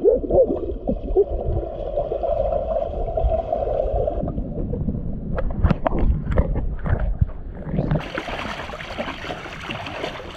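Underwater microphone sound of a dog wading through shallow sea water over sand: muffled sloshing and gurgling with scattered knocks. About eight seconds in it switches abruptly to open-air sound of water splashing around a wading person's legs.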